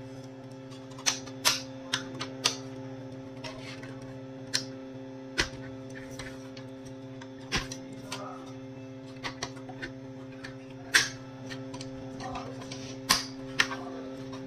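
Plastic clicks and snaps, irregular and spaced out, as the snap clips of a Xerox WorkCentre 7855 control panel housing are pressed and the plastic shell is worked apart, over a steady low hum.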